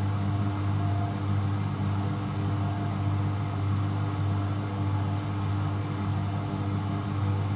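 Beko washing machine spinning at high speed on its final spin: a steady motor and drum drone with a low hum, swelling and easing slightly in loudness.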